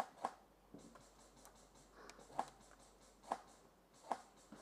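Airsoft gun firing single shots, each a short sharp snap: two in quick succession at the start, then three more about a second apart.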